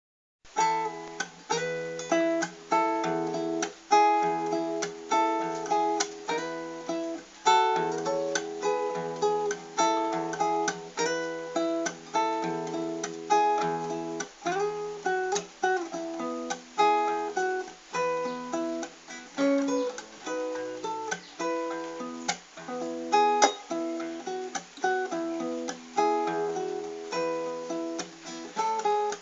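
Acoustic guitar playing an instrumental intro: chords struck in a steady, even rhythm.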